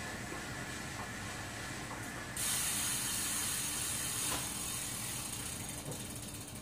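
Rear wheel of a bike spinning on an indoor trainer, a steady hum of the tyre on the roller. About two and a half seconds in, a louder high hiss and fast ratcheting set in, the rear hub's freewheel clicking as the wheel spins freely, fading slightly near the end.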